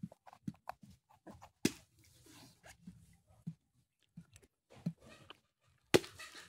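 Metal spoon scraping and tapping inside an opened young green coconut, a string of irregular small clicks and scrapes. About six seconds in, one sharp, loud chop of a machete blade into a green coconut's husk.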